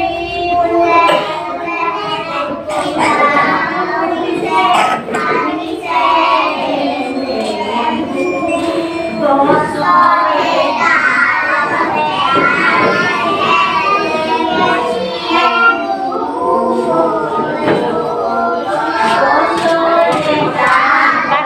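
A group of very young children singing a song together.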